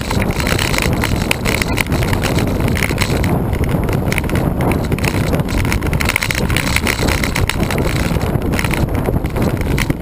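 Steady, loud rush of wind on the microphone of a camera riding on a moving road bike, mixed with the bike's rolling noise.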